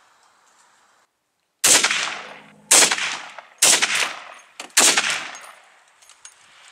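Four rifle shots about a second apart, each ringing out in a long fading echo.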